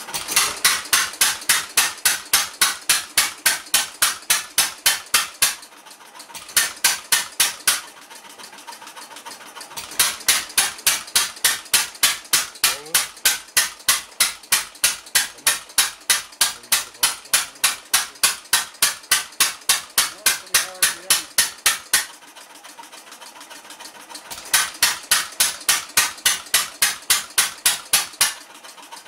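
1913 Stickney 1 3/4 HP hit-and-miss engine running, each firing a sharp bang at about four a second. It fires in runs of several seconds broken by pauses of one to two seconds, about six, eight to ten, and twenty-two to twenty-four seconds in, where it skips firing and coasts on its flywheels.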